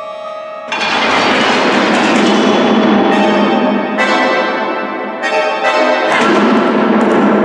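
Live contemporary chamber music: a held tone is cut off about a second in by a sudden loud, dense, ringing mass of sound, which is struck afresh four more times about a second apart.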